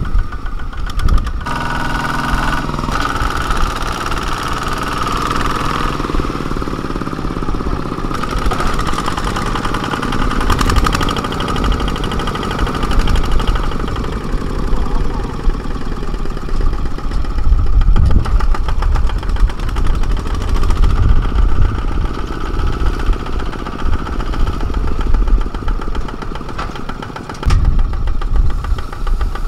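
Kubota ZT140 single-cylinder diesel engine of a two-wheel walking tractor running steadily with an even, knocking beat, working under load as it pulls a trailer through deep rice-field mud.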